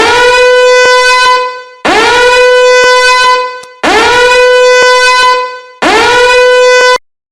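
Fire alarm horn sounding four loud long blasts about two seconds apart, each sliding quickly up to a steady pitch, holding it for about a second and a half, then fading.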